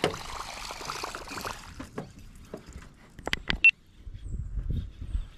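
Water splashing for about a second and a half, then several sharp clicks and knocks, one with a brief high ring, and a low rumble near the end.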